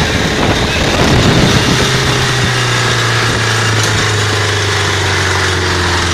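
Tractor diesel engine running under way, heard from on board: a steady, loud drone whose pitch eases slightly down over the last few seconds.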